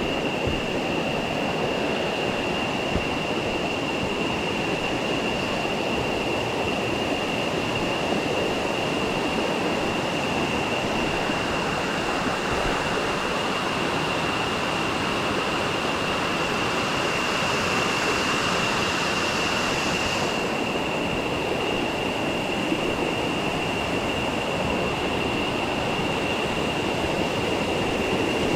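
Rushing river water: a steady, unbroken hiss, with a thin high-pitched tone held over it. A brighter hiss joins in for a few seconds and cuts off suddenly about twenty seconds in.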